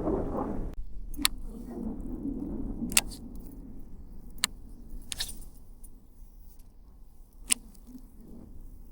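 Fishing reel and tackle being handled as a spinnerbait is cast and retrieved: about five sharp clicks and light metallic rattles spaced a second or two apart, over a low rumble of wind on the microphone.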